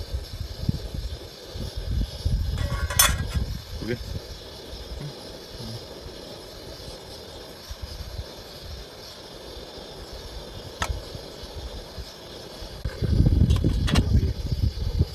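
Metal cookware clinking a few times as a steamer plate and then a glass lid are set into a camping pan, over low rumbling gusts of wind on the microphone and a steady faint hiss.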